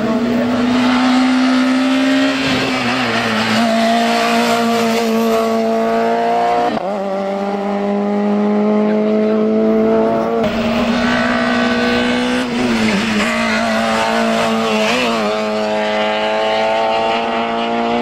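Race car engine at high revs, climbing the course under hard acceleration; its pitch rises slowly and drops briefly at each gear change, several times.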